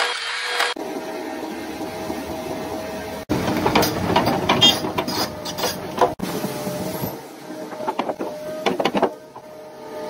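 Machinery running with a steady hum, broken by sharp clanks and knocks, in several short segments that cut off abruptly. The clanking is densest from about three to six seconds in and again near the end.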